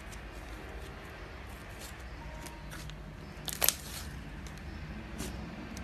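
Slime being played with by hand: scattered small clicks and crackling pops, with a louder burst of crackling about three and a half seconds in.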